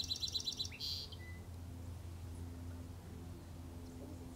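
A songbird singing a quick run of high, clipped notes that ends in a short buzzy note about a second in, then stops. A steady low hum lies beneath it.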